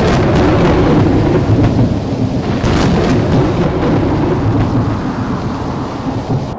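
A loud, steady rumbling roar of noise, thunderstorm-like, that cuts off suddenly at the end.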